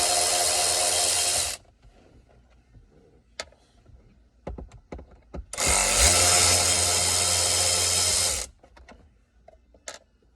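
Cordless drill-driver running in two runs of a couple of seconds each, backing out small T20 Torx screws, with small clicks and taps of handling between.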